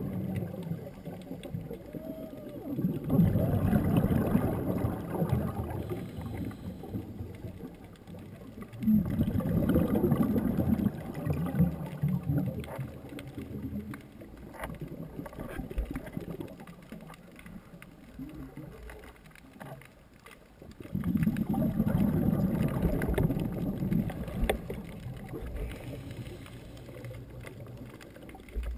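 Scuba diver's exhaled bubbles from the regulator, heard three times as low bubbling rumbles of a few seconds each, with quieter stretches between breaths; muffled through the camera's underwater housing.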